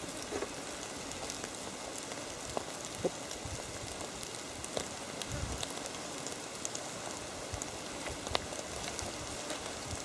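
Small fire of coconut shells crackling under whole fish roasting on it: a steady hiss with scattered sharp crackles.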